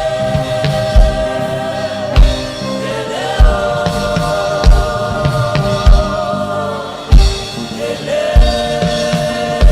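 Gospel worship singing by a choir, long notes held and sliding slowly between pitches, over a slow low drum beat about once every second and a quarter.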